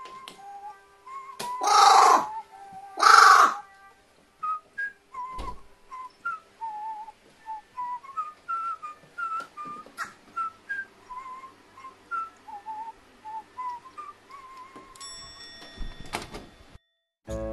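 A carrion crow gives two harsh caws, about two and three seconds in, over a whistled melody of short wavering notes. A brief ringing chime-like tone sounds near the end.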